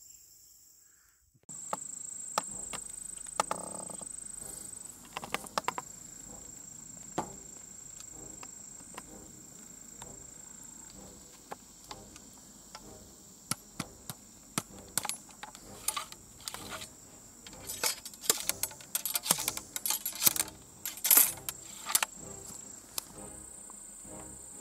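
An 1853 Enfield replica rifle-musket being muzzle-loaded: scattered clicks and knocks of the ramrod working in the barrel and the rifle being handled, with a dense run of clicks near the end. A steady high insect buzz runs underneath.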